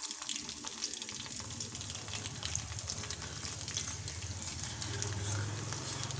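Garlic cloves and rice frying in hot sesame oil in an iron kadai, a dense steady crackling sizzle, while a metal spoon stirs them.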